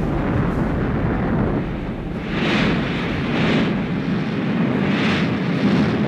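Katyusha multiple rocket launcher firing a salvo: a continuous heavy rumble with three swelling hissing whooshes in the second half as rockets fly.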